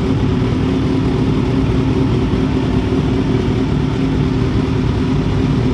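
2016 Kawasaki Z1000's inline-four engine running loud and steady through an aftermarket SC-Project race exhaust.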